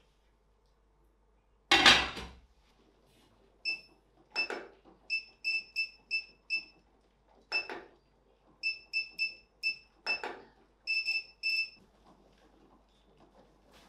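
A glass pan lid set down on a stainless steel pan with a single ringing clatter about two seconds in. Then a run of short, high electronic beeps from an oven's control panel as its dial is turned, one beep per step, with a few soft knocks from the knob among them.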